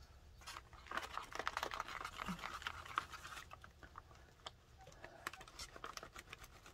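Glue stick rubbed back and forth across a paper journal page: a fast, faint run of small scratchy clicks, busiest in the first half, then thinning out to scattered ticks.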